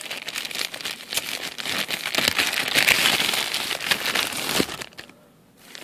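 Thin clear plastic bags crinkling and crackling as hands rummage through them and unwrap a toy airplane. The rustling is loudest about two to three seconds in and stops abruptly shortly before the end.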